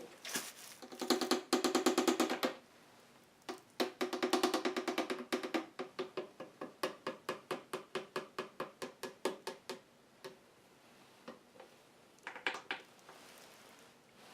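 Motor oil glugging from a bottle as it is poured into the engine fill: two runs of fast gulps, then slower, separate gulps as the bottle empties, and a few last ones near the end.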